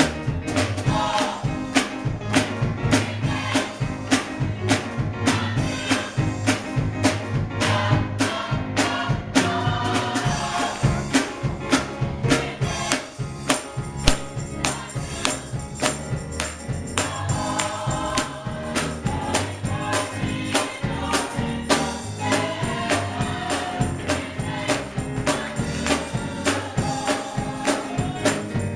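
Gospel praise music: a choir singing over a band, with a steady tambourine beat and bass.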